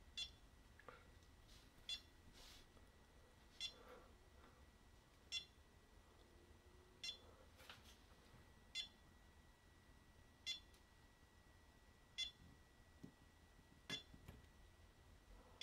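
Portable battery spot welder beeping: short high beeps repeating evenly about every 1.7 seconds, about nine in all.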